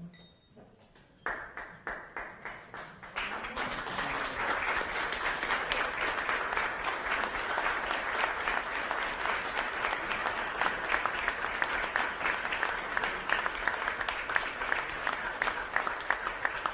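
Applause from a room of dinner guests: a few scattered claps about a second in, swelling after about three seconds into steady applause from the whole room.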